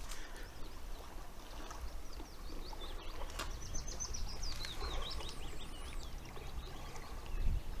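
A small songbird twittering and warbling in quick, wavering high notes for a couple of seconds, starting about three and a half seconds in, over a low background rumble.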